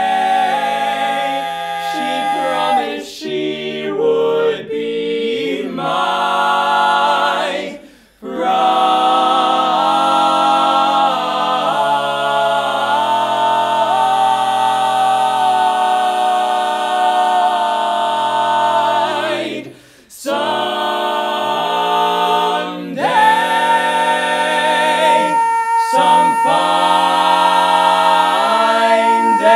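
Male barbershop quartet singing a cappella in close four-part harmony, moving through long held chords, with two brief breaks for breath about 8 and 20 seconds in.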